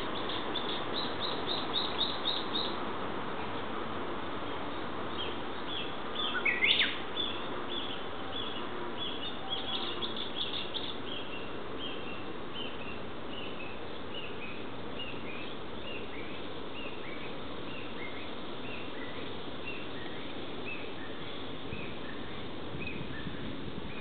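Mixed wild birdsong of Chinese bamboo partridge, brown-eared bulbul and Japanese bush warbler: rapid high twittering near the start and again about ten seconds in, one loud call sweeping down in pitch about seven seconds in, and a long run of short, evenly spaced notes that slowly fall in pitch, over a steady background hiss.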